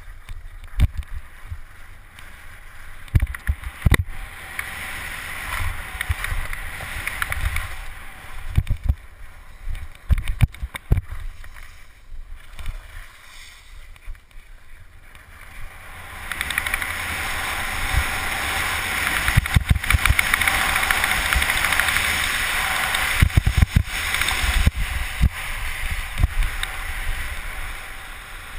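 Skis hissing and scraping over packed snow on a downhill run, with wind buffeting the helmet-mounted camera's microphone in low thumps. The scraping grows louder and steadier a little past halfway.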